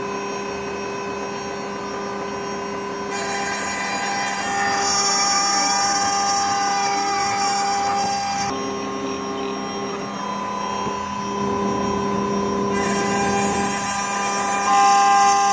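CNC router spindle running with a 1/16-inch two-flute end mill, cutting a small clock escapement pinion into a wooden blank. Steady whining tones switch in and out every few seconds as the machine works through the cut, with some sliding pitch glides in the middle; it gets louder near the end.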